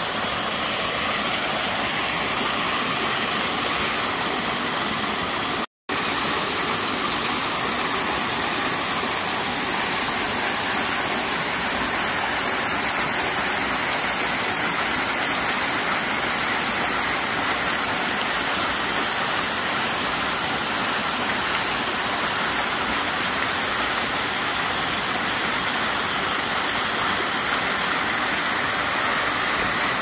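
Waterfall pouring into a rock pool: a steady, even rush of falling and splashing water. The sound cuts out for an instant about six seconds in.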